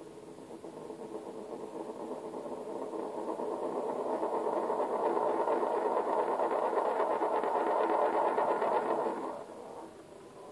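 Handmade glass spinning top winding down and wobbling, its edge chattering against a hard game board in a rapid rattle that grows louder. About nine seconds in it topples over and the rattle stops abruptly.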